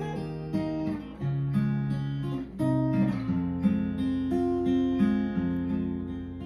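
Acoustic guitar with a capo playing an instrumental intro, chords strummed and picked so the notes ring on, changing every half second or so.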